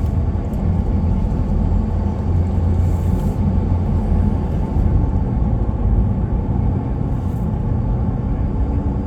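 Car driving on the road: a steady low rumble of engine and tyre noise heard from inside the cabin.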